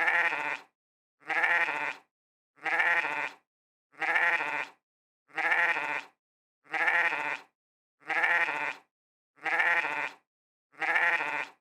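Sheep bleating "meh", nine alike bleats about one every second and a half, each short with silence between.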